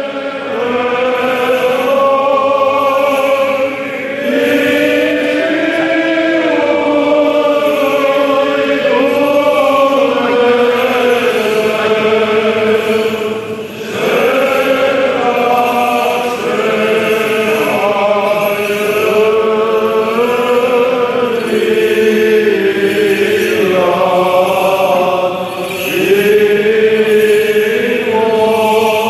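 Romanian Orthodox liturgical chant sung by several voices together in long, sustained phrases, with brief pauses between phrases about 4, 14 and 26 seconds in.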